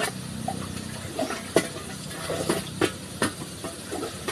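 Scattered sharp knocks and wet gurgling blips from a metal bucket being worked at the bottom of a dug well, with a steady low hum underneath. The sharpest knocks come about a second and a half in and twice near three seconds.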